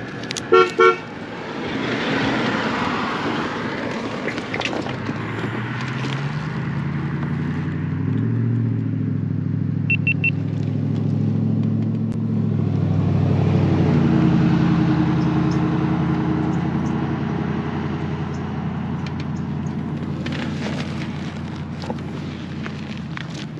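Kawasaki Ninja 300 parallel-twin engine accelerating, its pitch climbing in steps through the gear changes, then holding a steady cruise and easing off. Two short horn beeps sound about a second in.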